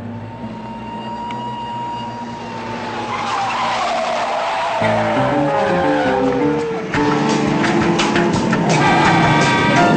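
A car's tires squealing in one long skid that falls in pitch, mixed with dramatic chase music that grows louder, with sharp rhythmic hits in its second half.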